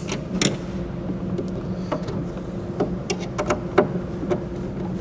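Scattered light clicks and taps of machine screws being backed out of a saddlebag hinge, over a steady low background hum.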